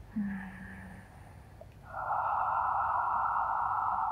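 A woman's long, steady exhale, close to a clip-on microphone, starting about two seconds in and lasting about three seconds. It is a breath timed to a seated Pilates side stretch.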